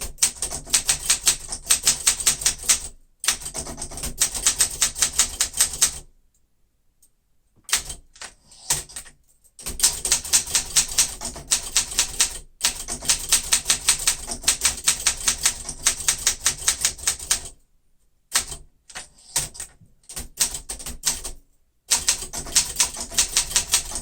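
1972 Olympia SM9 manual portable typewriter being typed on quickly: rapid runs of key strikes, several a second, broken by a few short pauses.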